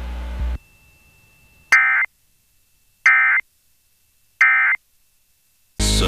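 Emergency Alert System end-of-message signal: three short, loud bursts of warbling digital data tones about a second and a half apart, marking the close of the alert test. Music starts right at the end.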